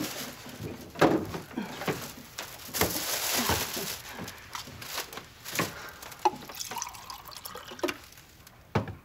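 Kitchen handling sounds: a refrigerator door opening with clicks and knocks, a plastic bag rustling about three seconds in, then water poured from a plastic bottle into a glass.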